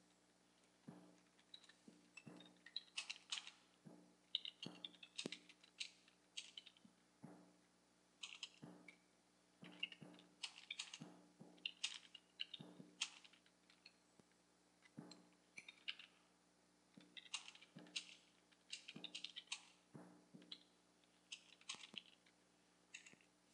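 Typing on a computer keyboard: runs of quick keystrokes with short pauses between words and phrases, over a faint steady hum.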